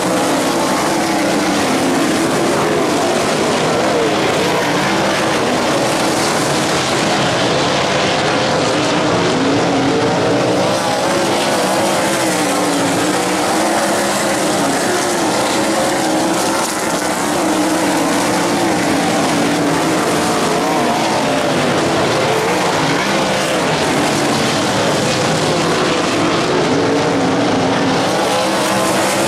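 Several race cars' engines running hard together, their pitches rising and falling as they lap the track.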